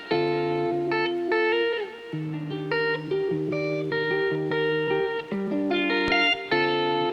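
Background music: guitar-led instrumental track with plucked notes.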